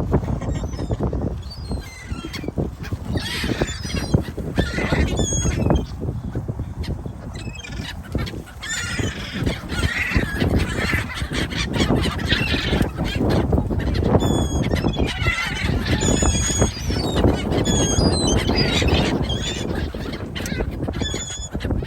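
A flock of birds calling while being fed: many short, high calls over a steady low rumble.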